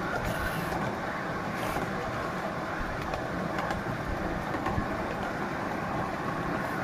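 Miniature ride-on railway train running along its track: a steady rumble and rattle of the cars' wheels on the rails, with a few faint clicks.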